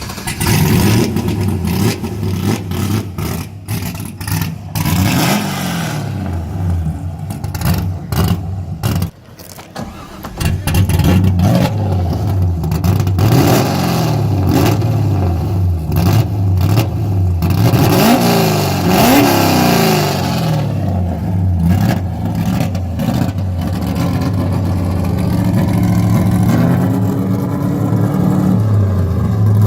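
LS V8 engine in a Nissan 240SX (S14) drift car running, its revs rising and falling again and again, with a brief drop about nine seconds in.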